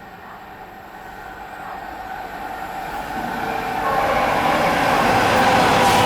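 Train approaching on the rails, growing steadily louder, with a steady whine from the wheels and rails over the rising rumble.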